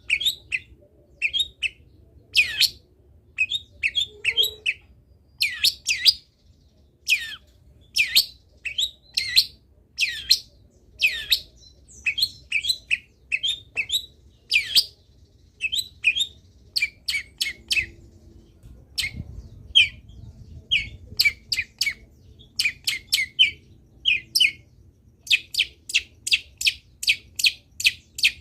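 Long-tailed shrike (cendet) singing a fast, varied song of sharp, high, falling notes in quick runs, with short pauses between phrases and a rapid string of clipped notes near the end.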